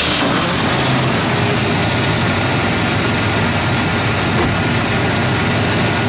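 Rebuilt 429 cubic-inch V8 of a 1968 Ford Thunderbird idling steadily, super quiet, under the steady rush of an added electric cooling fan.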